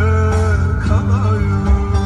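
A song: a wavering sung melody over instruments and a strong, steady bass.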